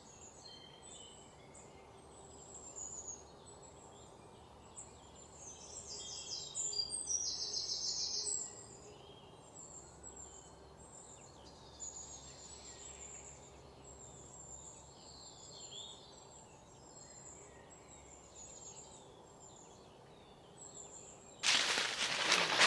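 Birds chirping and calling in dry woodland, with a louder rapid trill about seven seconds in. Near the end, footsteps suddenly crunch through dry fallen leaves.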